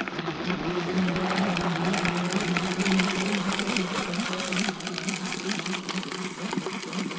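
Hand-cranked kitchen chopper being turned fast, its gears and blades whirring with a steady hum and a dense rattle; it eases off a little about halfway through.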